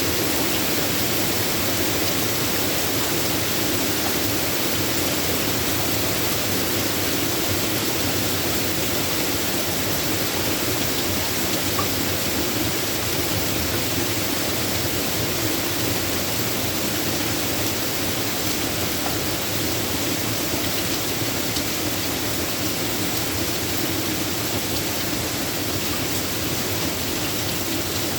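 Steady rain falling, an even unbroken hiss with no distinct thunderclaps.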